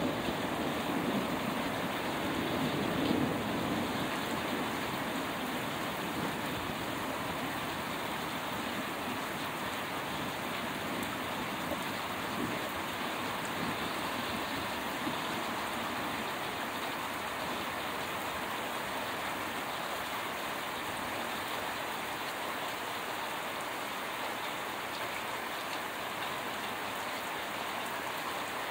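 Steady rain falling. A low rumble of thunder dies away over the first few seconds.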